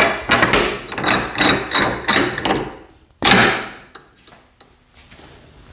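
Hammer blows in a quick run, about three a second with a ringing tone, then a pause and one last blow about three seconds in that rings out.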